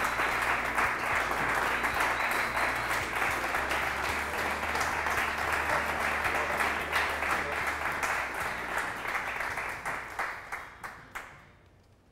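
A small audience applauding. The clapping thins to a few scattered last claps about eleven seconds in, then stops.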